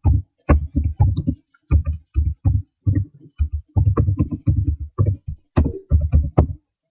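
A rapid, irregular run of taps and knocks close to the microphone, several a second, heavy and low-pitched.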